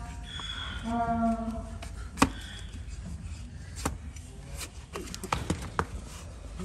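A hoof-trimming knife cutting through the thick horn of an overgrown donkey hoof, with a series of sharp, irregular cracks, the loudest about two seconds in. Near the start there is a brief steady pitched tone.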